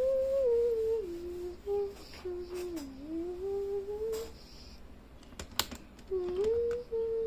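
A person humming a tune, held notes stepping up and down, in two phrases with a pause between them. A couple of sharp clicks fall in the pause.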